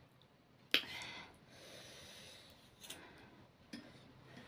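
Metal fork and spoon clinking against a ceramic bowl of noodle soup, with one sharp clink under a second in and a few lighter clicks later, between soft breathy noise.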